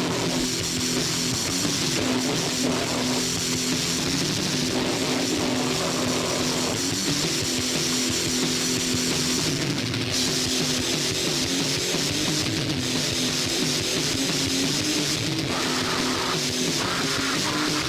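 Heavy metal / grindnoise music with distorted guitar and drums, a dense, unbroken wall of sound.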